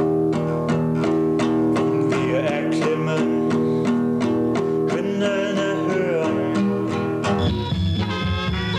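Nylon-string classical guitar strummed in a steady rhythm, about three or four strokes a second. About seven seconds in it cuts abruptly to different recorded music.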